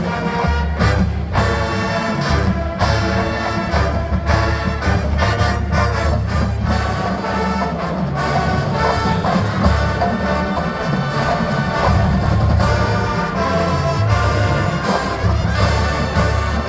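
College marching band playing loudly, brass-led with drums beneath.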